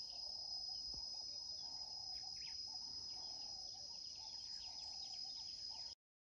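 Crickets trilling steadily on one high continuous note, with faint scattered lower chirps underneath. The sound cuts off suddenly near the end.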